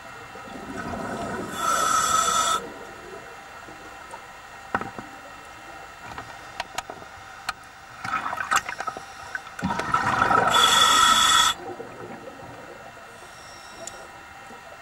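Scuba diver breathing through a regulator underwater: two breaths about nine seconds apart, each a stretch of bubbling followed by a loud hiss lasting about a second, with small clicks and ticks between.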